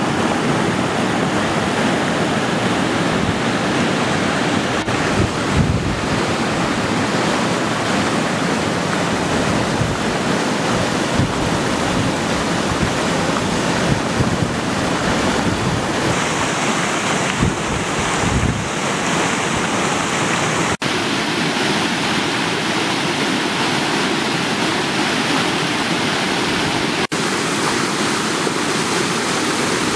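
Muddy floodwater rushing and pouring over a small stepped concrete weir: a steady, loud rush of water, with wind gusting on the microphone now and then. The sound breaks off for an instant twice.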